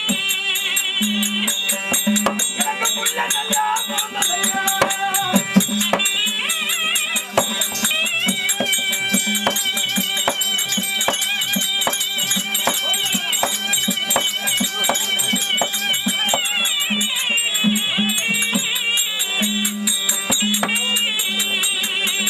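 Therukoothu folk-theatre accompaniment: a high, wavering melody over a steady drone, with hand-drum strokes and fast metallic jingling throughout.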